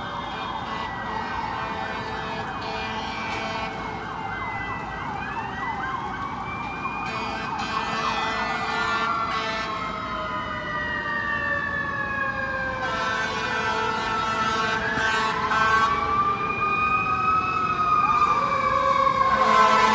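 Several emergency vehicle sirens wailing at once, their overlapping tones sliding up and down, growing louder toward the end.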